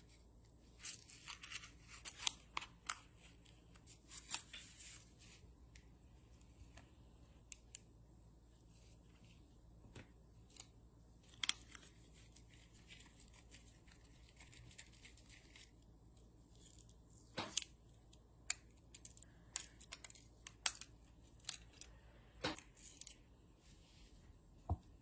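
Faint small-tool handling noises on a smartphone during repair: irregular sharp clicks and taps with short scraping, scratchy bursts between them.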